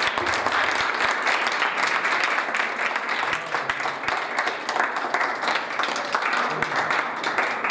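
Audience applauding, a dense, steady patter of many hands clapping that starts to die away at the very end.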